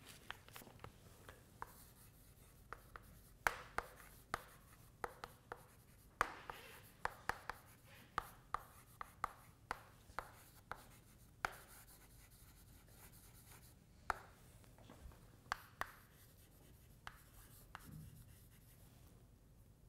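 Chalk writing on a blackboard, faint: irregular sharp taps and short scratching strokes as letters and symbols are written out.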